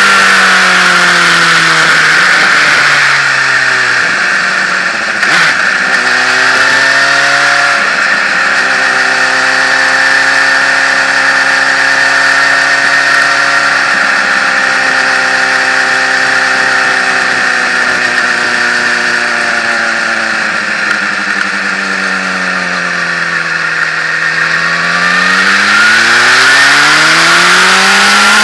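Motorcycle engine heard from on board with heavy wind rush: the engine note falls over the first few seconds as the bike slows, holds fairly steady while cruising, sinks again to its lowest pitch a few seconds before the end, then climbs steadily as it accelerates.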